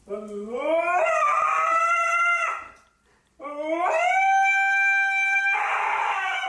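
A dog howling: two long howls, each rising in pitch at the start and then held, with a short pause between them. The second howl turns rough and hoarse near the end.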